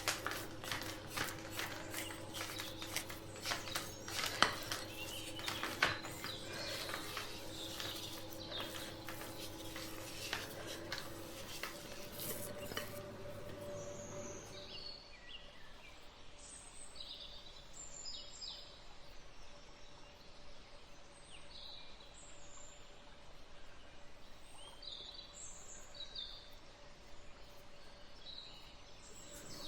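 Kitchen utensils clattering and scraping against a bowl or tray for about fifteen seconds over a low hum. After that come short, high bird chirps.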